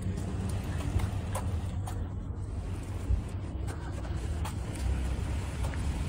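Steady low rumble of distant road traffic, with a few light, irregular taps of footsteps on paving stones.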